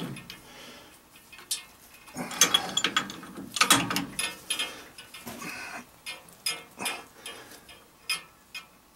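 Wrench turning a brass boiler feed valve onto its threaded pipe: irregular metal clicks and scrapes of the jaws re-gripping the valve body, louder about two and a half and four seconds in.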